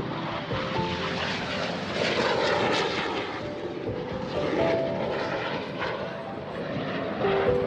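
Jet aircraft flying overhead, a steady engine rush that swells as it passes, loudest about two seconds in and again around four and a half seconds.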